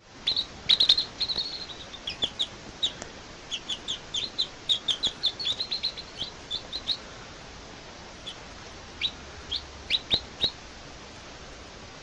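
Baby chicks peeping: many short, high, falling peeps in quick succession for the first several seconds, thinning to scattered single peeps until about ten seconds in, over a steady hiss.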